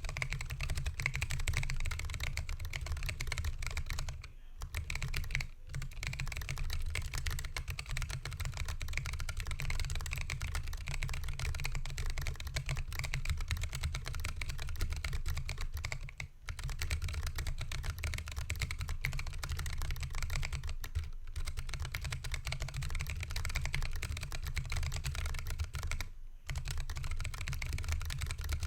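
Fast continuous typing on a Lily58 Pro split mechanical keyboard with Hako Royal Clear tactile switches and 3D-printed PLA DSA keycaps, in a 3D-printed PLA case with foam under the PCB: a dense patter of keystrokes, broken by a few short pauses.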